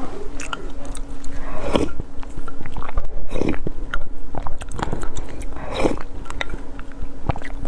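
Close-up eating sounds of a person taking spoonfuls of thick lotus root starch paste: a longer slurp about every two seconds, with soft chewing and small clicks of the wooden spoon against the glass mug in between.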